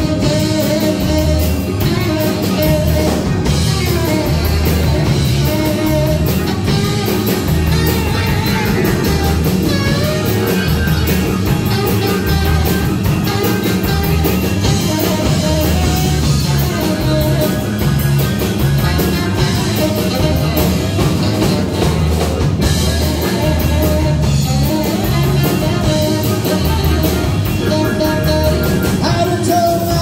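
Live big band playing a number with a steady beat: drum kit, guitar and horn section.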